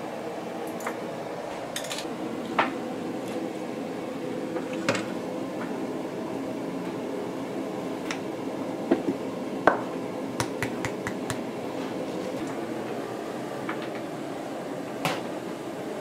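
Cooking utensils clinking: a ladle and spoon tapping against metal pots and a bowl at a gas range, over a steady kitchen background. Sharp clinks come one at a time, with a quick run of several about ten seconds in.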